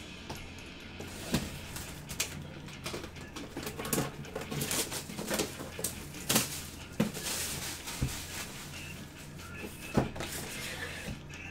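Cardboard collectibles box being handled, its plastic shrink-wrap torn and crinkled off, with sharp knocks and taps as the box is gripped and set down on the table. The rustling of the wrap is thickest about halfway through.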